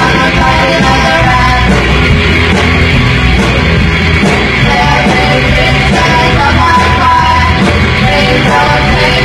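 Punk rock band playing live, loud and dense without a break.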